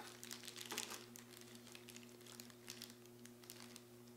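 Faint crinkling and rustling of packaging as a candle tin is unwrapped, with scattered light clicks and taps; the handling is busiest in the first second.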